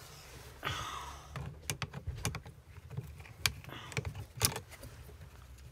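Metal hand tools being handled and rummaged through: scattered sharp clinks and clicks, with short stretches of rustling.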